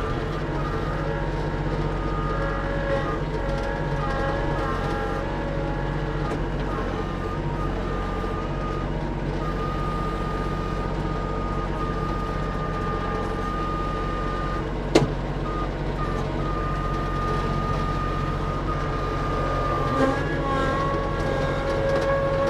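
Kubota LX2610 compact tractor's three-cylinder diesel engine running steadily while the front loader works the grapple, with a steady whine that shifts in pitch now and then. A single sharp knock sounds about fifteen seconds in.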